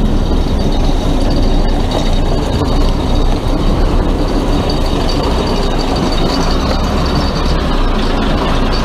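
A front loader with a Yuchai diesel engine running and driving, with a steady clattering rattle that the owner puts down to the driveshaft (cardan).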